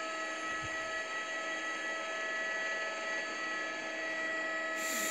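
Steady electrical hum and hiss, with several thin steady whining tones, a brief low thud about half a second in, and a brighter hiss joining near the end.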